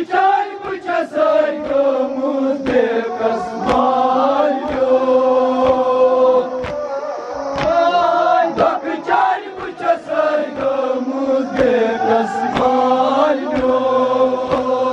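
Group of men chanting a Kashmiri noha (a mourning lament) in unison, with the mourners' chest-beating (matam) landing together about once a second as a steady beat.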